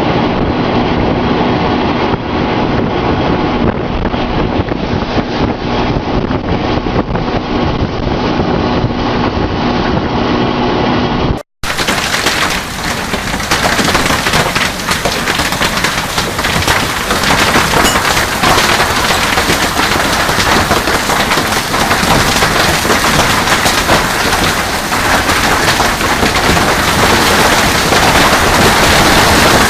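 Thunderstorm noise of heavy rain and wind, in two clips joined by a sudden cut about eleven seconds in. The first clip is duller and carries a steady low hum; the second is a brighter, harsher rush.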